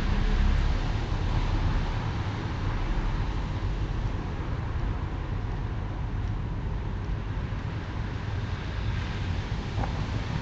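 Steady low rumble of outdoor background noise, with a faint click near the end.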